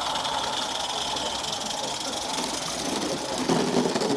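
Small live-steam garden-railway locomotive (16mm scale) running past, a steady hiss of steam with its exhaust chuffing.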